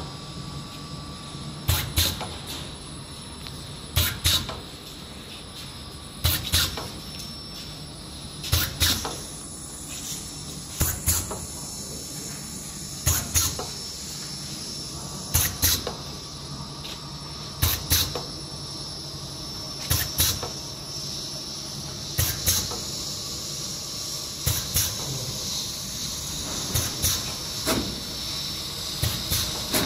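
Stuffed-date bar forming machine (Papa P188) running on test: a sharp cutting stroke with a short burst of hiss repeats about every two seconds over a steady machine hum and hiss. The strokes come faster near the end.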